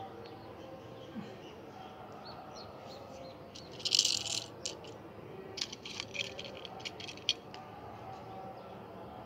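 Small toy cars being set down and moved on rough concrete: a short scrape about four seconds in, then a run of light clicks and rattles as the cars' wheels and bodies knock against the ground.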